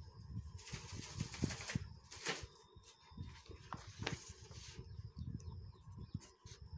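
Paper rustling and light handling knocks as a page of a notebook is turned over and smoothed flat.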